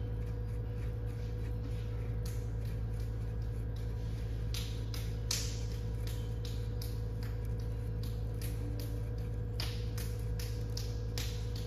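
Electric pottery wheel motor humming steadily, with irregular short wet squelches and clicks of hands and water working clay on the spinning wheel.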